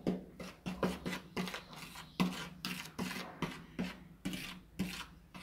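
Metal spoon scraping and clicking against a plate while stirring dry flour and salt together: a quick, irregular run of short scrapes, about four a second.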